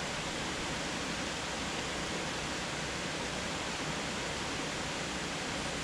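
Steady, even rushing background noise with no distinct sounds standing out of it.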